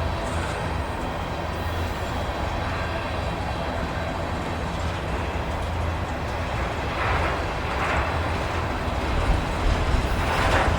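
Union Pacific freight train rolling slowly past: a steady low rumble of wheels on the rails, growing a little louder near the end.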